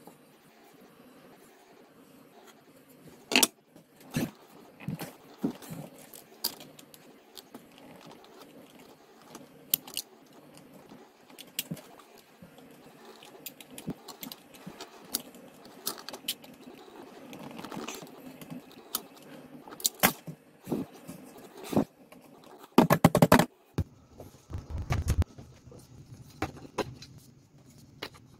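Handling noises from prying a stuck 3D print off a glass printer bed: scattered clicks, taps and scrapes of a snap-off utility knife blade against the hard plastic print and the bed. About four-fifths of the way through comes a quick burst of loud knocks, the loudest sound, followed by a brief low rumble.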